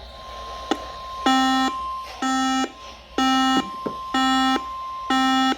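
An alert receiver's alarm beeping about once a second, five short buzzy beeps starting just over a second in. Beneath them runs a quieter steady tone near 1 kHz, the weather radio's warning alarm tone that comes before a new alert message.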